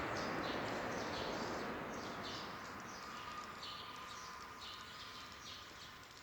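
Repeated high-pitched animal chirps, about one a second, over a steady hiss that fades away during the first few seconds.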